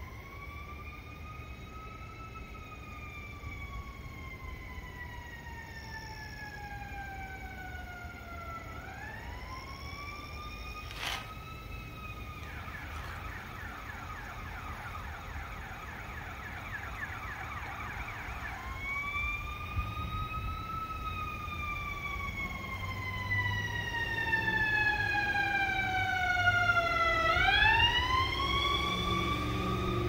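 Emergency vehicle siren sounding a slow rising-and-falling wail that switches to a rapid yelp for about six seconds in the middle, then back to the wail. A low vehicle rumble grows louder near the end.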